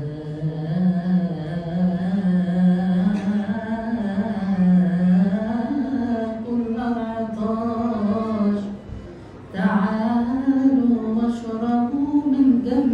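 A male priest's solo voice chanting a long melisma in Coptic liturgical style, the pitch winding slowly up and down on held vowels, with a short break for breath about nine seconds in.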